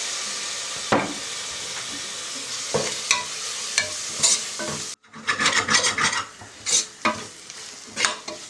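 A spatula stirring and scraping onion and spice masala around an aluminium pressure cooker as it sizzles in hot oil with a little water just added. A steady sizzling hiss with a few scrapes gives way, after a brief break about five seconds in, to quick repeated scraping strokes.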